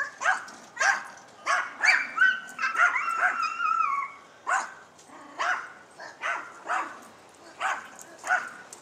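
A dog barking over and over, a short sharp bark every half second to second, with a longer high-pitched wavering sound mixed in from about two to four seconds in.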